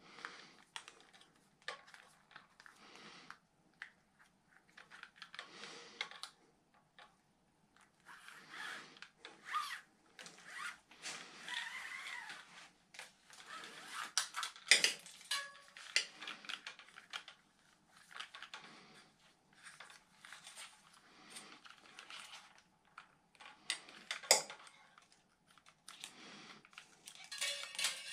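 Hands working a Shimano 105 road-bike brake-shift lever and its cable: irregular small clicks, rattles and rustling, with a few sharper clicks, one about halfway through and one near the end.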